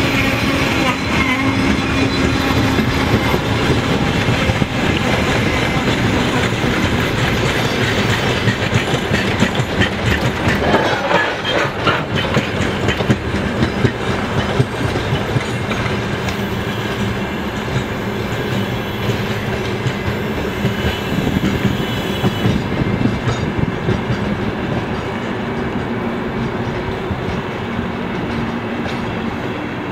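Freight wagons of a mixed freight train (boxcars, gondolas, container flatcars) rolling past at low speed, their wheels clattering rhythmically over rail joints. The sound eases slightly toward the end.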